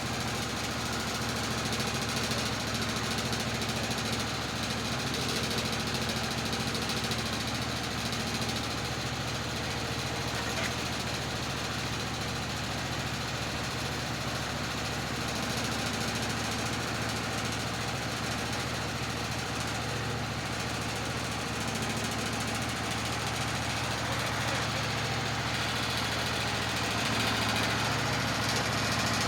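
An engine idling steadily, with an even low hum that holds unchanged throughout.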